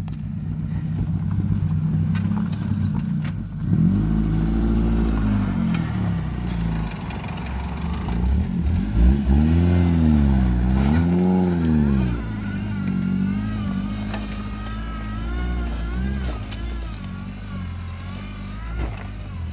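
A vehicle engine working hard, its revs rising and falling: one swell about four seconds in and two more around ten seconds. It then runs steadier, with a higher whine wavering over it.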